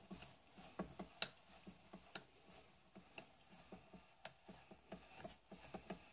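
Faint, irregular light clicks and taps from handling a homemade wooden mini lathe, several a second, with a few sharper knocks scattered through.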